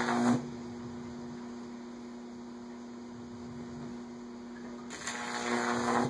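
Microwave oven transformer humming steadily while powering a Jacob's Ladder, with the high-voltage arc between the wires crackling and buzzing loudly at the start and again for about a second near the end.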